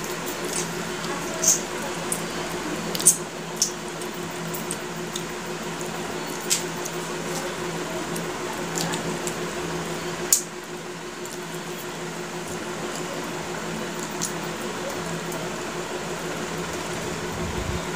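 Two people eating fish curry and rice with their hands from steel plates: chewing and fingers working the rice and curry, with a few sharp clicks, the loudest about three and ten seconds in, over a steady low hum.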